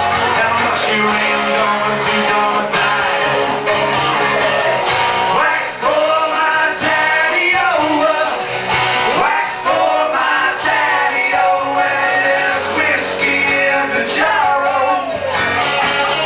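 Live band playing a rock song on acoustic and electric guitars, with sung vocals and lead electric guitar lines, amplified through PA speakers.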